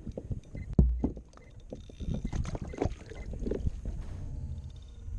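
Irregular clicks and knocks of a fishing rod and reel being worked and a fish lifted aboard a sit-on-top kayak, with one heavy thump about a second in.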